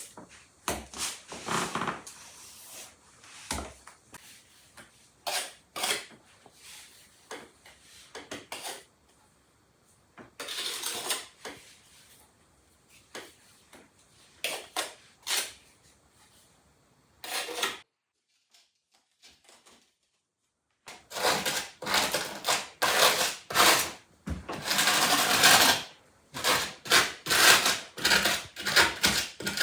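Irregular knocking, tapping and scraping of hand work with tools or hard objects, stopping for a few seconds past the middle, then resuming in a denser run with longer scrapes.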